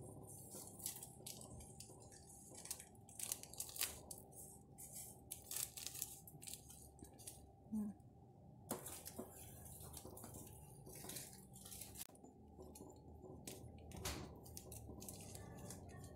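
Plastic seasoning sachets crinkling as powder is spooned out of them, with light metal-spoon clicks and scrapes against a stainless steel pot, in many short irregular crackles over a faint steady low hum.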